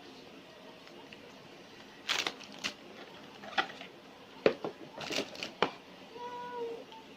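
Irregular rustling, scraping and a few sharp clicks of packaging and parts being handled. It is quiet for the first couple of seconds. There is no clipper motor running.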